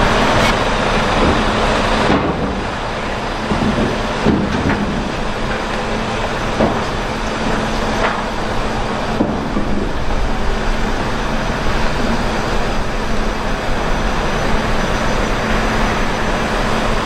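Heavy diesel engine running steadily, with a constant low hum and a few faint knocks.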